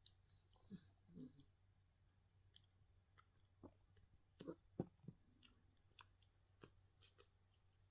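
Sleeping, dreaming puppy making faint, irregular clicking and smacking mouth sounds, about a dozen, the loudest nearly five seconds in.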